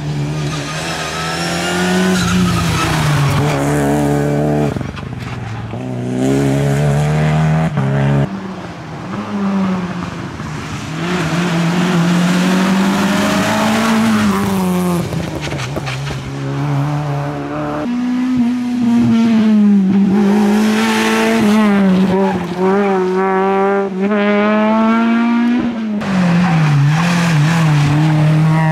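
Rally cars driven hard one after another: engines revving up and dropping back through gear changes and lifts for corners. The sound breaks off abruptly three times as one car gives way to the next.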